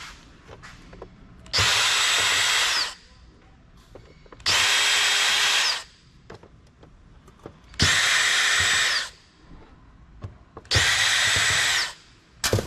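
Small cordless power screwdriver running in four short bursts of about a second each, spinning out screws from a computer's CD-ROM drive, with light clicks of handling between runs.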